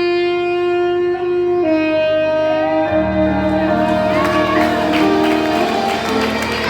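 Live music: a wind instrument holds a long, steady note and then steps down to a lower one. About three seconds in, low sustained chords come in beneath it.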